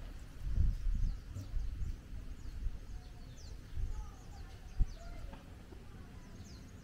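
Birds chirping: quick high chirps throughout and a few short whistled notes in the middle. Low thumps and rumble in the first two seconds, and a single sharp click about five seconds in.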